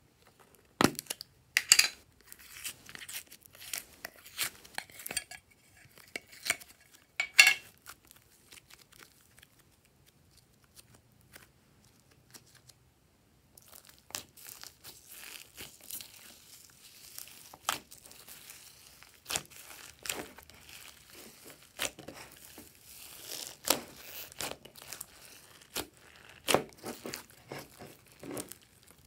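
Hands squeezing and kneading slime mixed with foam beads in a glass tray: a run of crackles and sharp sticky clicks, broken by a few seconds' pause near the middle.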